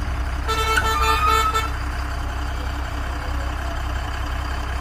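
A vehicle horn sounds once for about a second, starting about half a second in, over the steady low hum of an engine running.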